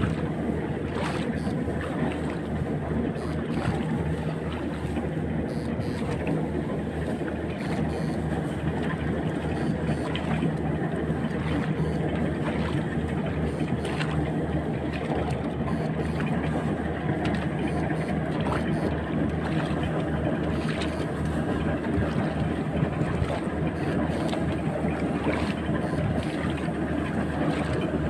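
A small engine running steadily at a constant speed, with occasional sharp clicks.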